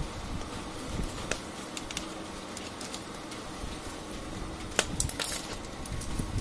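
Small clicks and knocks of a plastic printer fuser assembly and its wiring connectors being handled and unplugged, over a low steady background rumble. There is a short cluster of sharper clicks about five seconds in.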